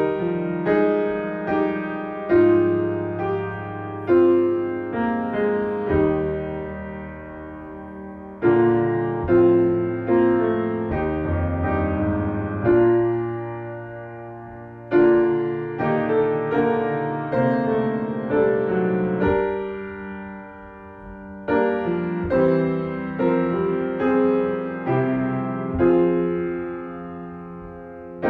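Piano playing a hymn in slow, full chords, each chord struck and left to ring.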